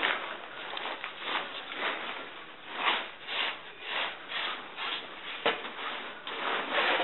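Nylon tent fabric rustling and rubbing in repeated swishes as a fiberglass tent pole is pushed through its sleeve, with one sharp click past the middle.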